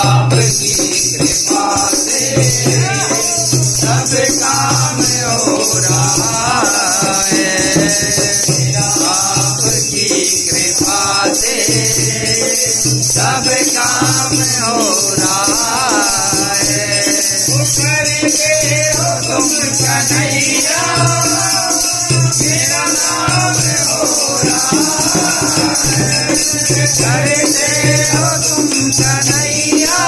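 Bhajan kirtan: voices singing a devotional song, with shaken, jingling hand percussion sounding without a break and a low beat pulsing about once a second.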